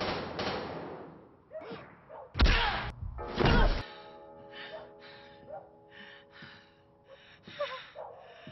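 Film soundtrack: a dense rushing noise fades out in the first second or so, then two heavy blows land about a second apart. They are followed by a held musical drone under a woman's ragged gasping breaths.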